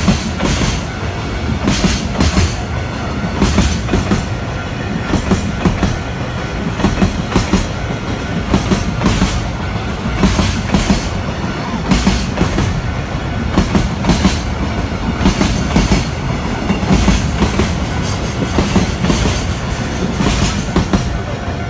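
Loud freight train passing close by, its wagons rolling steadily with wheels clacking in repeated groups over rail joints throughout.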